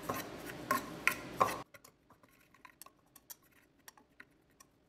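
Wire whisk stirring dry besan flour and spices in a ceramic bowl, its wires giving irregular light clicks and taps against the bowl, sparser and fainter after about a second and a half.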